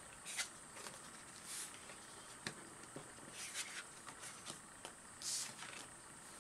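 Tarot cards being picked up, turned around and laid back down on a table: faint, brief swishes of card sliding and a few light taps of card against the tabletop.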